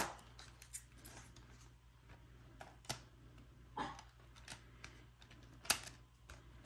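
A plastic multi-disc DVD case snaps open with one sharp click, followed by faint scattered plastic clicks and rustles as the hinged disc trays inside are handled.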